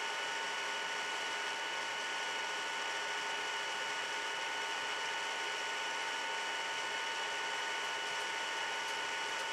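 Steady hiss with a faint, constant high-pitched whine of several thin tones: background noise of the recording, with no knocks or other distinct sounds.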